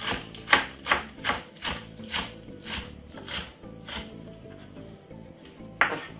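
Knife chopping spring onion on a cutting board: a steady run of strokes, about two to three a second, that thins out after about four seconds, with one last louder chop near the end.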